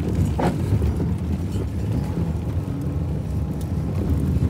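Car driving, heard from inside the cabin: a steady low rumble of engine and tyres, with a brief knock about half a second in.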